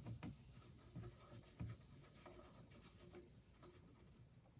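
Near silence: a faint steady high-pitched tone, with a few soft knocks in the first two seconds.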